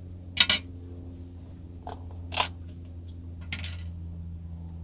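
Sharp plastic clicks and knocks from handling a measuring spoon and small containers while seasoning mashed potatoes: a quick pair of clicks about half a second in, a loud one past two seconds and a fainter one later, over a steady low hum.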